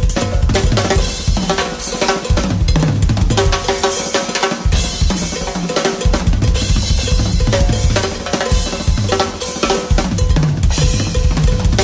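Drum kit played in a dense, fast groove: bass drum, snare with rimshots, and cymbals.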